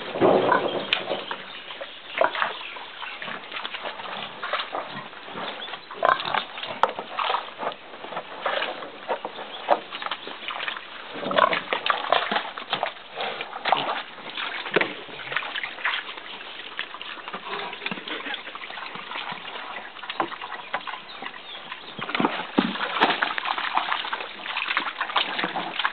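Pigs grunting and squealing in irregular short bursts, loudest at the start.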